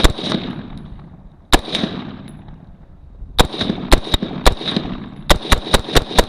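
Gunfire at targets: about eleven shots, each followed by a fading echo. There are two single shots in the first second and a half, then a string of shots that comes faster and faster near the end.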